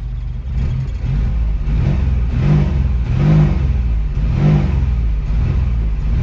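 1994 Geo Metro XFi's 1.0-litre three-cylinder engine, just started, idling for about a second and then blipped repeatedly, about once a second, each rev rising and falling back as it takes throttle. Heard from inside the car.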